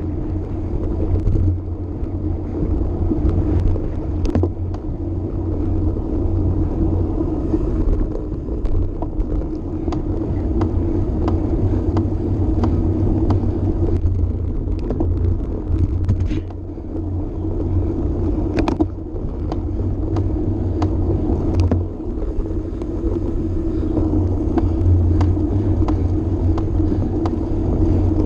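Steady rumble of a road bike being ridden at speed, heard on a bike-mounted camera: wind on the microphone and tyres rolling over the path, with scattered small clicks and rattles from the bike.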